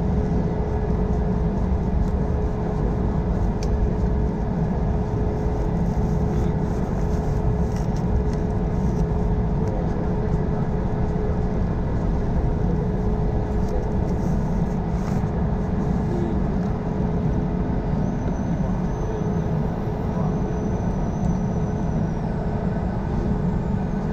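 Steady cabin drone from the Airbus A220-300's Pratt & Whitney PW1500G geared turbofans at low power while the jet taxis, with no spool-up for the takeoff run yet.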